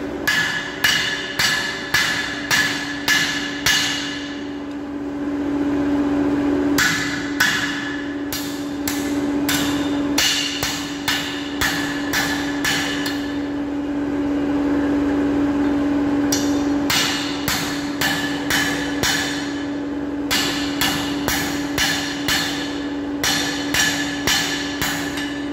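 Hand hammer beating a piece of metal on an anvil during forging, in runs of blows at about two a second, each with a short metallic ring, broken by pauses of a few seconds. A steady low hum runs underneath.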